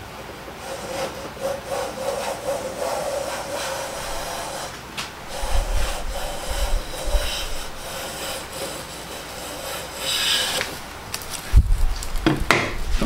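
Siegley No. 5 jack plane taking one long stroke along the edge of a board: a steady rub of the iron slicing off a long, thin shaving, cutting cleanly with no chatter. The stroke stops near the end, followed by a couple of thumps as the plane is set down on the bench.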